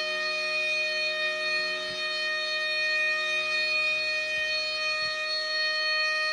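CTI SMO-15 outdoor warning siren sounding a steady tone, holding one pitch without rising or falling.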